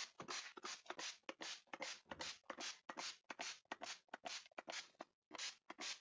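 Trigger spray bottle squeezed rapidly, misting liquid cleaner onto the inside walls of a refrigerator: a quick, even run of short hissing spurts, about three or four a second, with a brief pause near the end.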